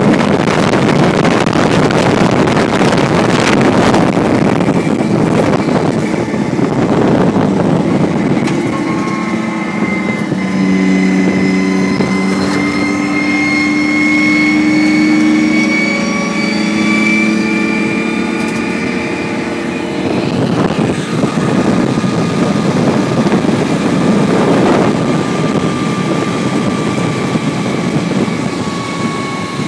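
LAV-25 eight-wheeled armored vehicle driving on a dirt road, heard from its open turret hatch: a steady diesel engine and drivetrain noise mixed with wind rushing past. From about ten seconds in, a whine of several pitches sits on top and rises slowly, fading out about twenty seconds in.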